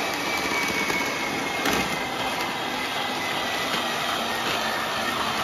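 Electric hand mixer running steadily, its twin beaters mixing flour into cake batter in a plastic bowl, with a faint steady motor whine and a brief knock about a second and a half in.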